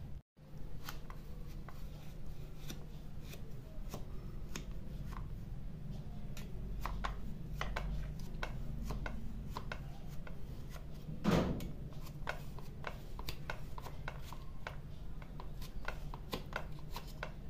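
Flat steel spatula cutting a warm, soft gulpapdi slab into pieces in a steel plate: irregular light scraping clicks as the blade edge meets the plate bottom, with one louder knock about eleven seconds in, over a steady low hum.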